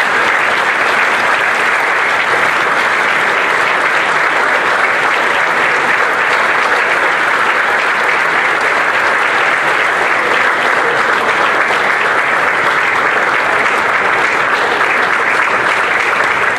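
A large audience applauding steadily and at length, a standing ovation for an award recipient.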